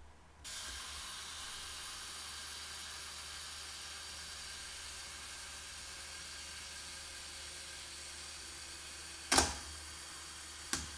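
Canon F-1-series 35 mm film SLR's shutter fired by the self-timer: a sharp click about nine seconds in, then a smaller click about a second and a half later, over a steady hiss.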